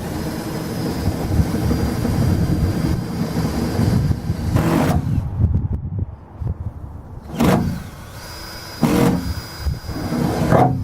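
Power drill boring through the steel floor of a pickup bed: a long stretch of drilling with a faint steady high whine, then a stop, then three short bursts of drilling near the end.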